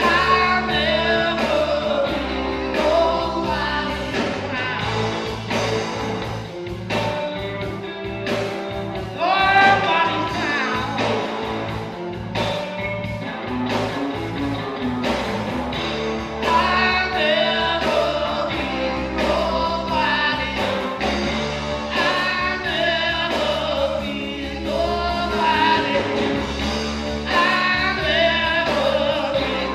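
A band playing a song, with a singer's melody over instruments and a steady beat.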